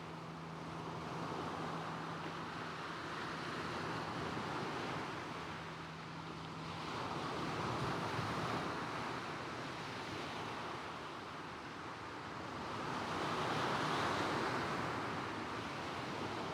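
Small waves breaking and washing across a shingle beach, swelling about every six seconds, with light coastal wind. A low steady hum, like a distant motor, runs underneath and stops about halfway through.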